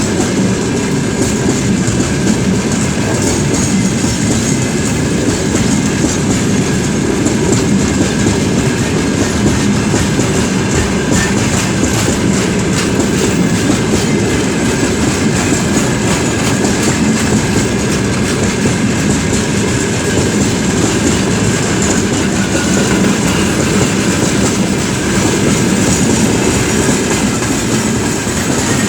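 Freight train rolling along the rails: a steady, loud rumble of the wagons with fast clatter of wheels over rail joints.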